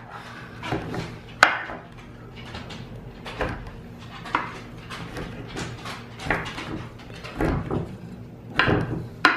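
Small metal cookie spatula plunged down through layered phyllo dough and pistachios, knocking against the bottom of the baking dish in irregular sharp taps about once a second. The sharpest tap comes about a second and a half in.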